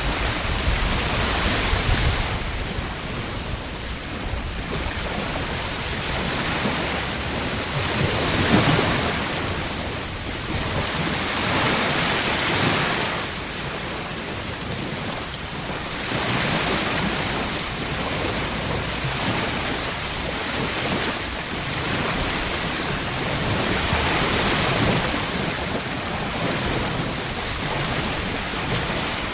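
Ocean waves washing in and out, a steady rush of surf that swells and falls back every few seconds.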